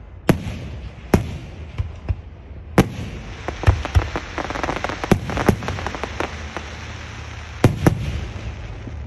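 Aerial firework shells bursting in a quick string of sharp bangs, about ten in nine seconds. A denser cluster of smaller pops comes in the middle, and two close bangs come near the end.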